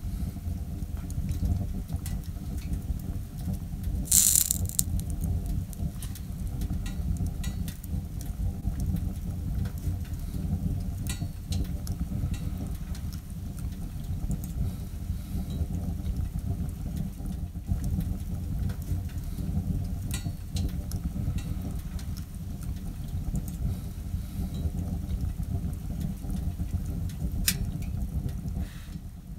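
Wood fire burning in a small windowed tent wood stove (Winnerwell Nomad View): scattered crackles and pops over a steady low rumble, with one louder pop about four seconds in.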